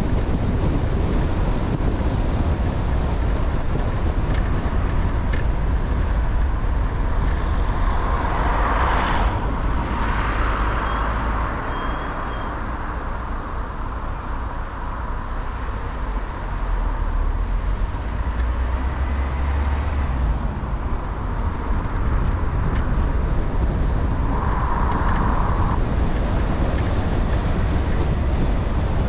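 A car being driven: a steady low rumble of engine and road noise that drops somewhat about halfway through, with a couple of short louder swells.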